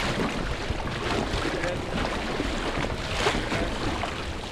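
Rushing whitewater splashing against an inflatable raft, a continuous churning noise with brief louder splashes.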